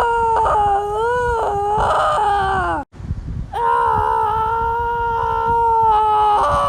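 Two long, high-pitched screams, each held about three seconds. The first wavers up and down in pitch. After a short break the second is held steadier and drops in pitch as it ends.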